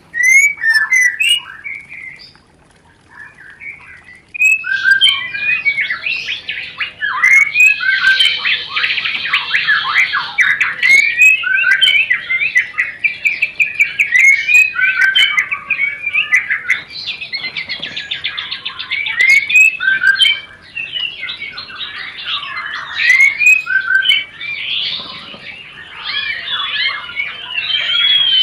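White-rumped shama (murai batu) giving a fast, dense chattering song of rapid sweeping notes, its breeding-condition 'rencetan' call. There is a brief lull about two to four seconds in, then the chatter runs on continuously.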